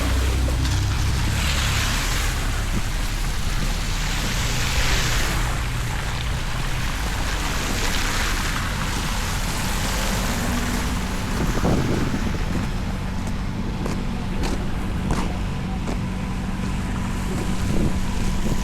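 Street traffic ambience: vehicles passing in swells of tyre hiss over a steady low rumble, with wind noise on the microphone. A faint steady hum joins past the middle.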